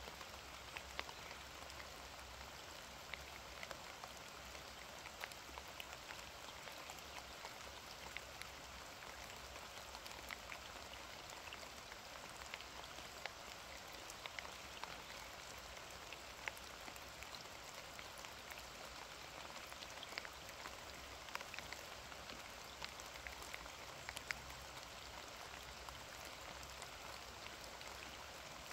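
Steady rain, with many separate drops landing as sharp ticks over an even hiss.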